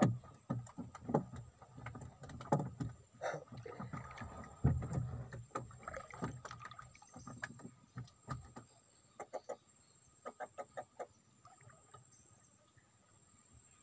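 Irregular knocks and thumps against a small wooden boat, followed about nine seconds in by a quick run of light, even ticks.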